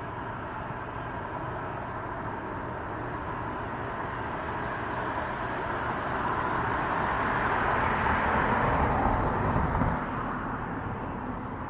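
A motor vehicle passing over a steady background of outdoor noise: it swells over several seconds, is loudest about nine seconds in, then falls away sharply.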